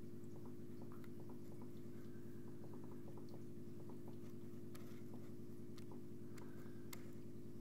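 Aquarium pump humming steadily, with faint small clicks scattered over it.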